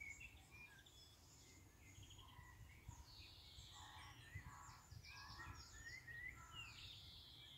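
Faint birdsong: several birds chirping, trilling and whistling, over a low uneven rumble.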